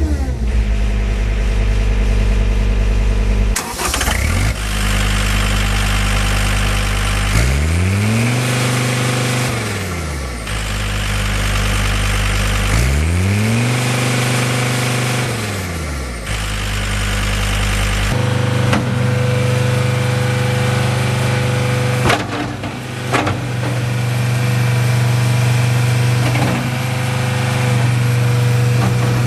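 John Deere 329D compact track loader's diesel engine running. About a third of the way in it is revved up and let back down twice. After that it holds a steady speed with a whine on top, and a couple of sharp knocks come through.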